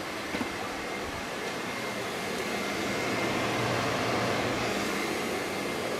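Steady rushing drone of a kitchen vent fan over the stove, swelling a little louder in the middle, with a faint thin whine.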